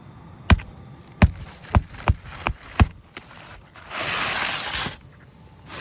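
Six sharp knocks on the shingle roof in quick, uneven succession, then about a second of rushing noise.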